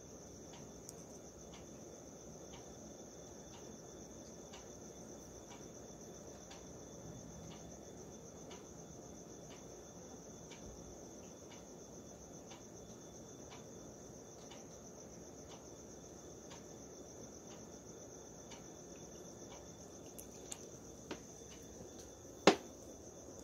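Crickets chirring at night: a steady high-pitched trill with regular chirps about twice a second. A couple of small clicks and then one sharp knock come near the end.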